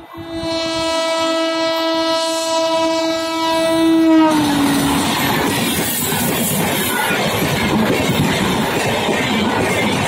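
Train horn sounding one long, steady blast that dips slightly in pitch and stops about four seconds in. The clatter of an express train's passenger coaches running past follows.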